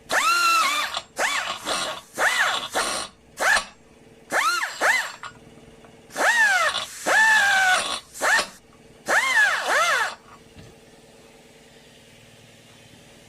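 Electric drill driving a cutter into the welded aluminium of a steering knuckle's ball-joint ear, run in about ten short trigger bursts whose pitch climbs and then sags as the cutter bites into the metal. The bursts stop about ten seconds in, leaving a faint steady hum.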